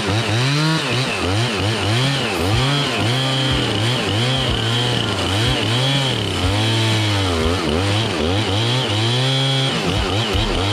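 Chainsaw engine running hard, its pitch revving up and dropping back again about once a second, as when cutting into wood.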